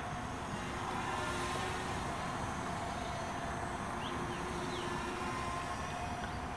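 MJX Bugs B7 brushless quadcopter hovering and drifting low, its propellers a steady hum whose pitch shifts slightly as it moves.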